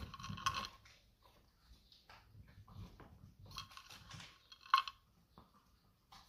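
A chihuahua crunching kibble picked up from a rug: two short bouts of chewing, the second ending in one sharp crunch.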